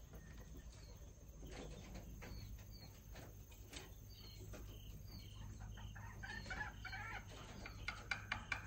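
Quiet backyard ambience: faint bird chirps repeating, with hens clucking a little past the middle and a few soft handling clicks near the end.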